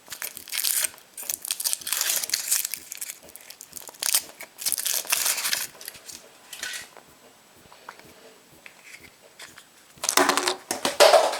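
Foil wrapper of a chocolate surprise egg crinkling and crackling as it is unwrapped, in several bursts, with a louder crackle near the end.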